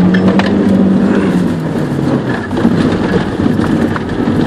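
Škoda Felicia rally car's engine running hard under load, heard from inside the cabin; its steady note drops about two seconds in. Scattered light ticks come through over the engine.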